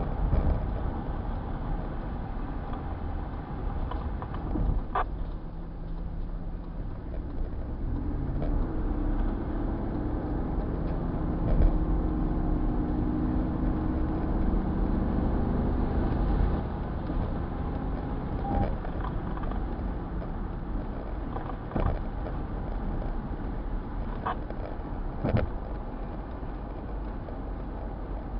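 Steady low road and engine rumble inside a moving car, with a few short sharp clicks.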